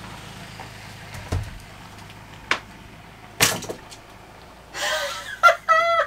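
Handling knocks from a cordless drill and its right-angle attachment, with one louder knock about three and a half seconds in as the drill is set down on a plywood floor. A breath and a short bit of voice follow near the end.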